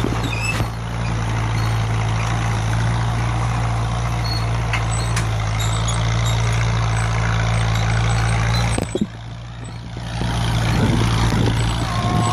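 1949 Case farm tractor engine running steadily under way, with a brief dip in level about nine seconds in.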